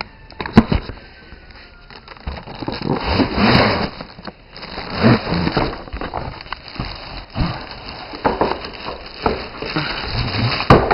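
Cardboard and plastic packaging being handled: irregular rustling and crinkling with scattered knocks and clicks.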